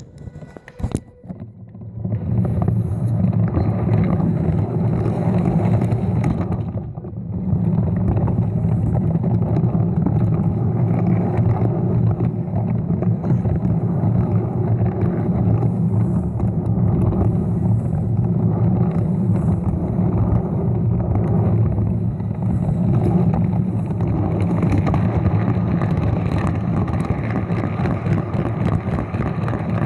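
A Lego train's small electric motor running steadily, starting about two seconds in, with a brief dip in level about seven seconds in.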